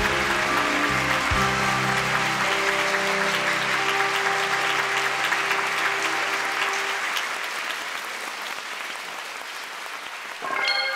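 Audience applauding while closing music plays; the music ends about seven seconds in and the applause fades away. Near the end a new ringing, bell-like chord sounds suddenly.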